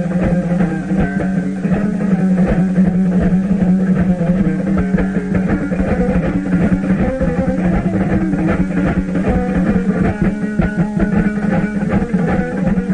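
Instrumental music: a plucked string instrument playing quick, busy notes over a steady low drone.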